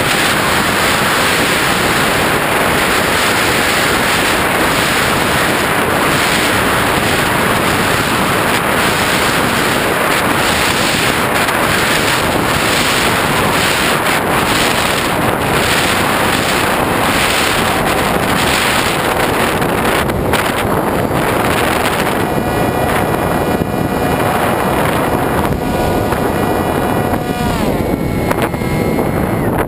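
Heavy wind rush over the GoPro's microphone on a flying FPV wing, with the wing's motor and propeller whine coming through in the last third. Near the end the whine drops sharply in pitch as the throttle comes off.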